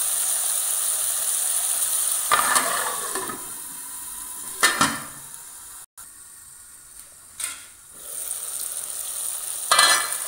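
Onion-tomato masala sizzling in oil in a metal kadhai. About four and a half seconds in, a steel lid clinks down onto the pan and the sizzle becomes muffled and quieter; after a second clink the lid is off and the sizzle comes back louder, with metal utensil clinks near the end.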